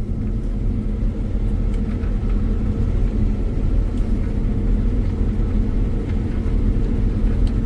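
Combine harvester running steadily while reaping wheat: an even, low engine and machinery drone with a constant hum.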